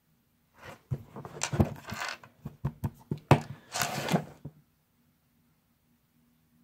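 Close handling noise: an irregular run of clicks and rustles right at the microphone while eyeshadow is brushed onto the eyelid, stopping a little over halfway through.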